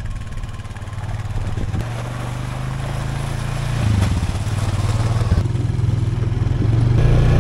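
Quad bike (ATV) engine running, revving up as the bike pulls away about four seconds in and getting louder near the end as it rides off along the track.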